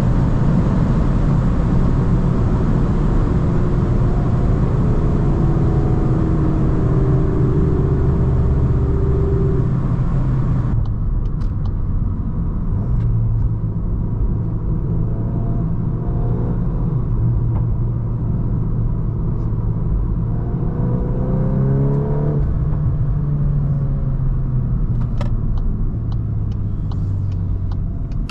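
Volkswagen Golf 8 R Performance's turbocharged 2.0-litre four-cylinder engine pulling at high speed under steady road and wind noise, its pitch rising slowly as it accelerates, twice. About eleven seconds in the sound turns duller.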